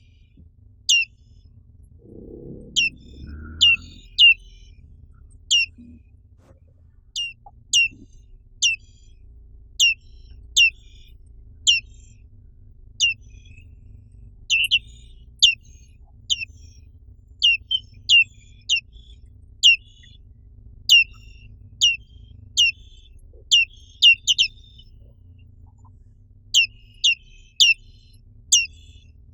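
Black-capped white-eye (Zosterops atricapilla) calling: a long run of short, high, sharply falling chirps, about one to two a second, some in quick pairs.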